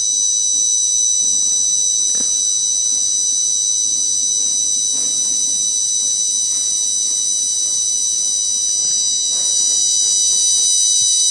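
Arduino-driven piezo buzzer sounding one continuous high-pitched tone. It is the smoke alarm, set off by incense smoke reaching the MQ2 gas sensor past its set threshold.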